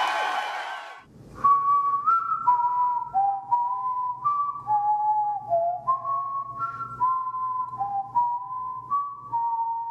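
A crowd cheering fades out in the first second, then someone whistles a slow tune, clear single notes stepping up and down, over a faint low hum.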